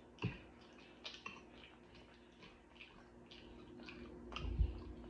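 Close-miked eating sounds: chewing with lip smacks, a string of small irregular clicks. A low thump about four and a half seconds in.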